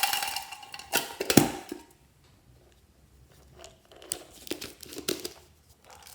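Hands squishing and stretching glossy slime, with sticky crackling and small pops. It is loudest for about the first two seconds, then goes on as softer, scattered squelches and clicks.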